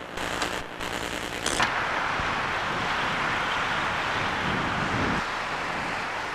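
Steady street noise through a camcorder microphone. It takes over from a harsher tape hiss with short dropouts that cuts off about a second and a half in, and a low rumble swells and fades about five seconds in.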